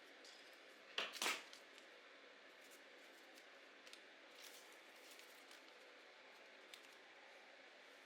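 Two quick crisp snaps close together about a second in, from hands working with paper, then a few faint ticks over near silence.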